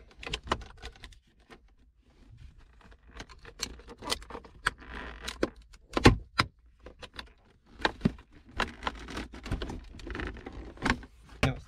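Irregular clicks, taps and rattles of plastic interior trim on a 2011 Porsche Panamera 4S being worked loose by hand, with one sharp loud knock about six seconds in.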